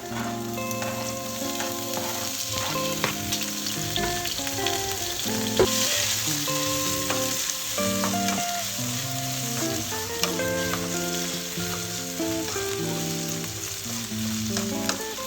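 Food sizzling in a hot frying pan, with clicks and scrapes of a utensil stirring it, the sizzle swelling about six seconds in. Background music with a melody of held notes plays underneath.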